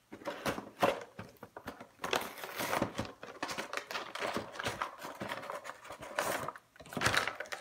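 Cardboard toy box being torn open by hand: repeated ripping of paperboard and crinkling packaging, in irregular bursts.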